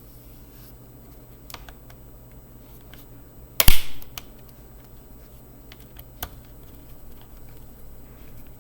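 Sparse small clicks of a screwdriver working the screws of a laptop's plastic bottom cover, with one sharp, loud knock about three and a half seconds in.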